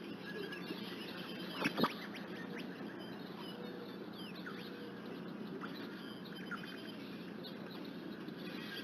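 Outdoor nest-cam ambience: a steady background hiss with scattered faint, short, high chirps, and two sharp knocks close together a little under two seconds in.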